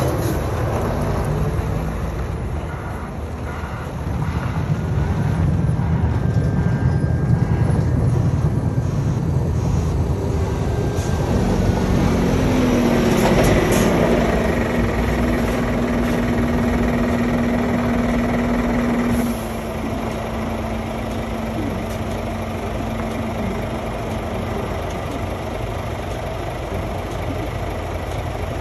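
Diesel engines of 8x4 tipper trucks running close by as the trucks move at low speed, with a steady hum joining a little under halfway through. The sound drops about two-thirds of the way in, leaving a quieter engine running on.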